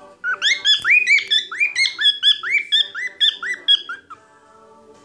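Cockatiel whistling its song: a quick run of short, arched whistled notes, about four a second, that stops about four seconds in.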